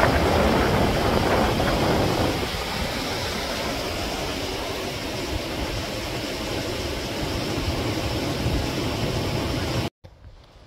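Small waterfall: white water rushing over rock ledges, a steady, loud rush of water, a little louder in the first two seconds. Near the end it cuts off suddenly to a much quieter background.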